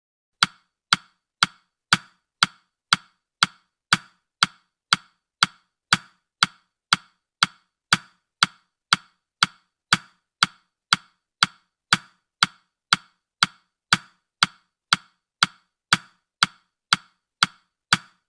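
Countdown timer's ticking sound effect: sharp, evenly spaced clicks at about two a second.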